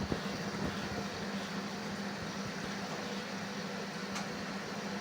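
Steady mechanical hum with a constant low tone, with a click at the start and a faint tick about four seconds in.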